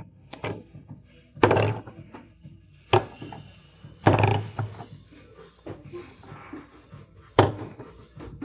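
Several loud thuds and knocks at irregular intervals, four standing out, amid lighter clatter.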